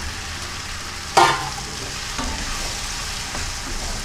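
Raw chicken pieces sizzling in a pan of frying onion-tomato masala as they are stirred in with a wooden spatula. A sharp knock about a second in stands out above the steady sizzle.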